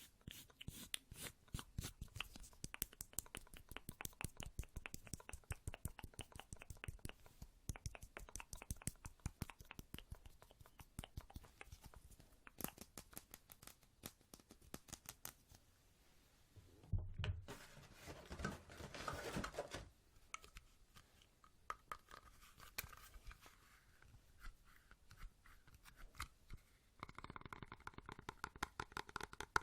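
Rapid tapping for ASMR: fast runs of quick, crisp clicks, many a second. A little past the middle the tapping gives way for a few seconds to a louder rustling rub.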